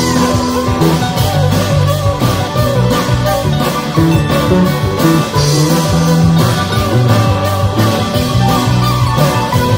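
Live string band playing an instrumental passage: plucked strings carrying the melody over bass notes and a steady drum beat.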